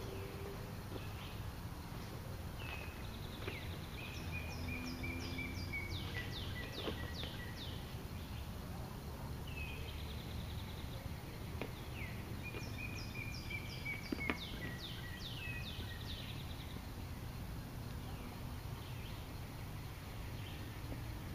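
Woodland songbird singing twice, each song a quick run of high down-slurred notes and a falling trill, over a steady low rumble. A few sharp clicks are heard, the loudest about fourteen seconds in.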